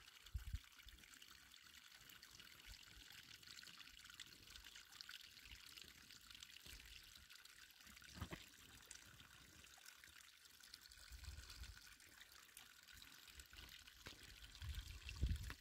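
Near silence: a faint steady hiss, with a few soft low thumps.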